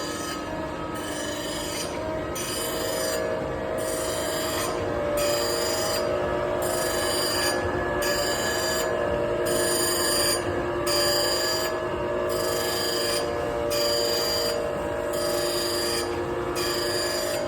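Surface grinder grinding, with a steady whine under a high hiss that comes and goes about once a second as the reciprocating table carries the work back and forth under the wheel.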